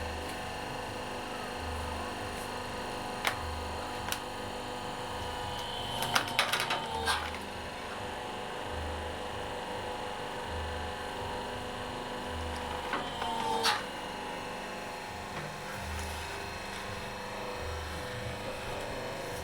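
A hydraulic press's electric motor and pump running steadily, with a low pulse about once a second. There are short bursts of metallic clatter about six seconds in and again near thirteen seconds.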